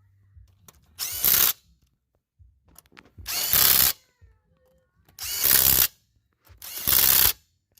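Impact gun running lug nuts down on a truck wheel in four short bursts of under a second each, tightening every other beveled acorn nut in turn to seat the wheel flush.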